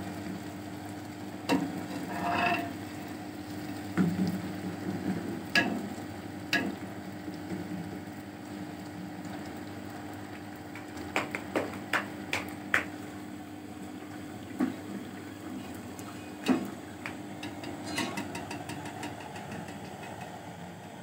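Dough pastries sizzling in hot oil in a large metal pot, with metal tongs and a spoon clicking and scraping against the pot at irregular intervals. There is a quick run of clinks about eleven to thirteen seconds in.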